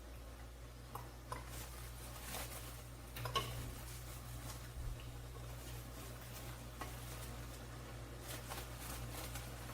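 Faint sizzling of a chapati cooking in a pan, with a few light clicks and taps of a utensil against the pan, the loudest about three and a half seconds in, over a steady low hum.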